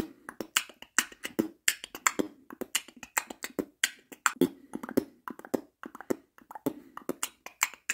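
Outro music: a busy, dry percussive beat of low thumps and sharp clicks, several hits a second, with no melody.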